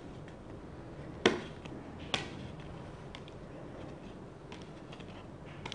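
Board game cards being leafed through and laid on a pile, with two sharp card snaps about one and two seconds in and a few fainter ticks after.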